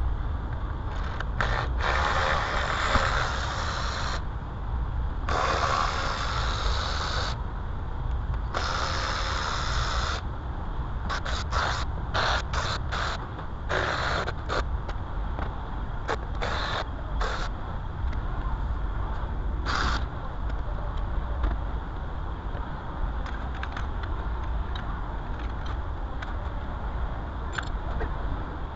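Three long bursts of hissing spray in roughly the first ten seconds, then many short scrapes and clicks, all over a steady low hum.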